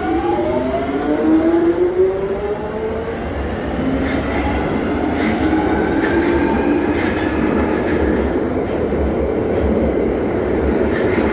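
Jubilee line train's thyristor-controlled traction motors whining as the train pulls away, several tones climbing in pitch in steps and then climbing again a few seconds later. Under the whine, the wheels rumble on the rails with a few clicks.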